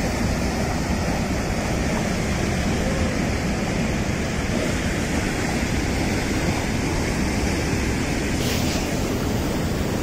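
A waterfall pouring over rock ledges: a steady rush of falling water, with wind buffeting the microphone.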